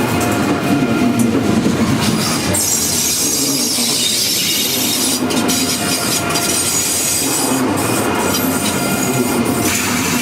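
German ICE3 high-speed train's wheels squealing against the rails on a very sharp curve, a steady mix of several high-pitched tones. About two and a half seconds in, a harsher high hissing screech joins for a couple of seconds.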